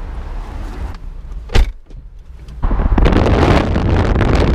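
A car door shuts with one sharp thud about one and a half seconds in. After a short hush comes loud wind buffeting the microphone in a Ford Mustang convertible driving with the top down, with a low rumble underneath.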